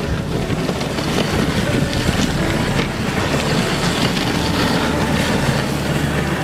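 Dog sled running over packed snow behind a husky team: a steady rushing, crunching noise of runners and paws on snow, with wind on the microphone.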